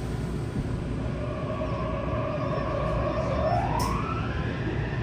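Mitsubishi IGBT-VVVF inverter whine of a Yokohama subway 3000S train pulling away, heard inside the car: a steady tone starts about a second in and rises in pitch after about three seconds as the train gathers speed, over a low running rumble.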